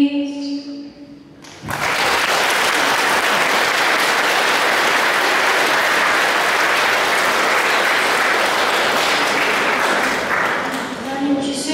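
Audience applauding. The clapping breaks out about a second and a half in, holds steady, and dies away near the end.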